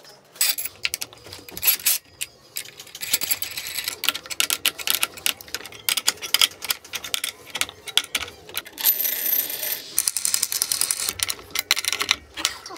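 Steel G-clamps and F-clamps being tightened by hand on a plywood glue-up: a quick, irregular run of metallic clicks and rattles from the clamp screws and handles, with a couple of short scraping stretches.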